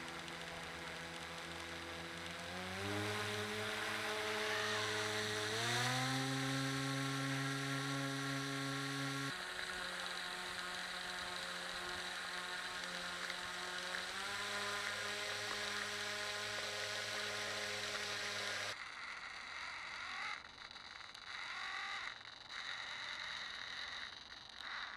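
Radio-controlled model rescue boat's motor whining, stepping up in pitch twice, dropping, then rising again as the throttle changes. It cuts off about three-quarters of the way through, leaving fainter, uneven noise.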